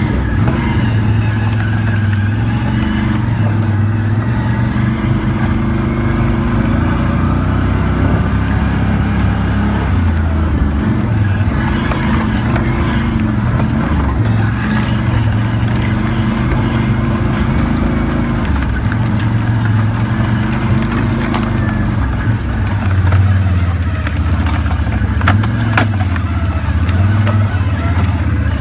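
ATV engine running while the quad is ridden hard over rough ground, its note rising and falling with the throttle. A few sharp clicks come near the end.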